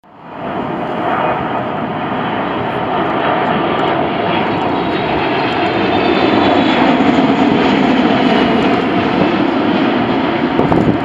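The twin GE90 jet engines of a Boeing 777-300ER on low final approach, passing close by. A steady jet rumble builds over the first few seconds, with a high whine that slowly falls in pitch.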